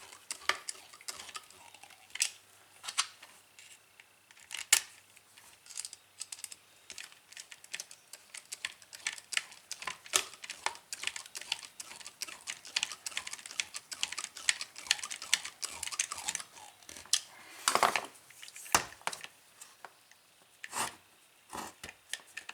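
Irregular small clicks and taps of hands working on a disassembled DeWalt drill, plastic housing and metal parts knocking together, with a few louder knocks.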